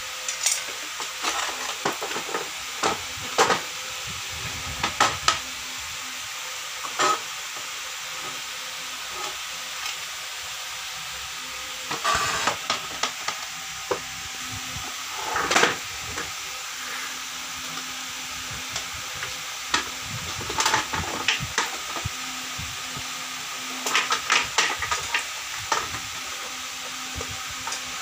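Handling noise from taking apart a plastic induction cooktop: scattered clicks, knocks and scrapes of the casing, screwdriver and loose screws on a hard floor, in clusters a few seconds apart over a steady hiss.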